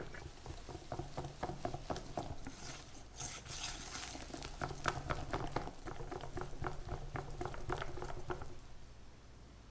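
A whisk beating flour and strawberry powder into a wet sponge-cake batter in a glass bowl: quick repeated strokes with wet stirring and light clicks of the whisk against the glass. It fades out near the end as the batter turns smooth.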